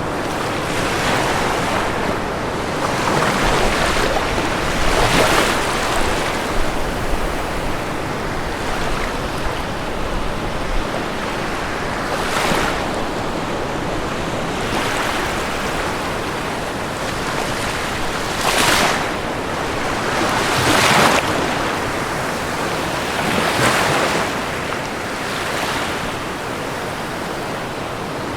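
Ocean waves breaking and washing onto the shore over a steady surf hiss, with a louder wave cresting every few seconds.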